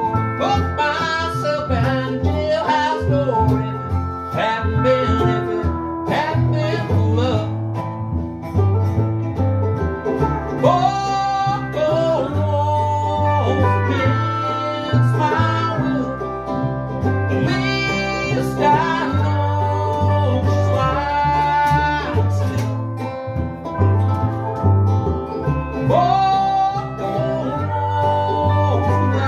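Small acoustic band playing a country-style song: bowed cello, resonator guitar and ukulele, with sliding notes, likely the pedal steel, over a pulsing bass line.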